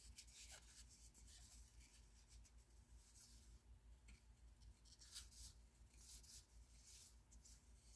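Faint, brief rustles and scrapes of baseball trading cards sliding against one another as they are flipped through, several times, over quiet room tone.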